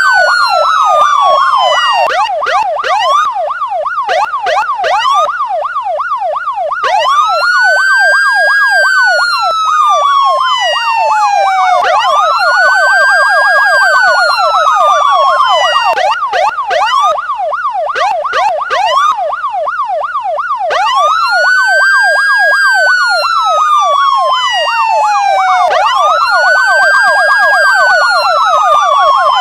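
Police car siren: a wail that rises quickly and falls slowly over about four seconds, repeating, layered over a fast yelp cycling several times a second. The wail drops out twice for a few seconds, leaving only the yelp.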